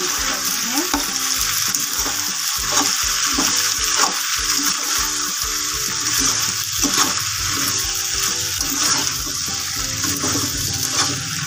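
Slotted spatula stirring and scraping boiled macaroni in a frying pan, with repeated scrapes against the pan over a steady sizzling hiss.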